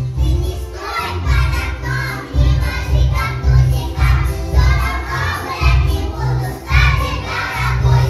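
A group of young children singing lively chastushki together over instrumental accompaniment with a steady, pulsing bass beat.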